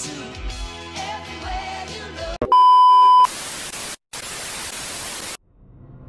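Music plays, then cuts off abruptly into a loud, steady, high test-tone beep lasting under a second. The beep gives way to two bursts of television static hiss separated by a brief gap, then silence, and a low noise fades in near the end.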